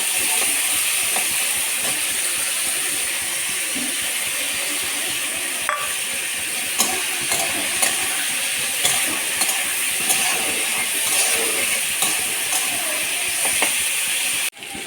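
Vegetables frying in hot oil in a pan with a steady sizzle, stirred with a spoon that now and then clicks sharply against the pan.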